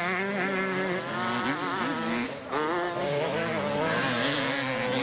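Two-stroke motocross motorcycles racing, their engines revving up and falling back as the riders work through the turns and jumps. The revs drop briefly about halfway through, then climb again.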